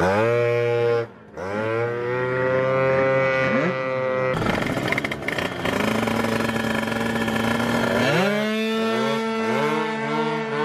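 Tuned two-stroke sprint scooter engines revved hard at the start line. The pitch climbs sharply and then holds high, with another steep climb about eight seconds in.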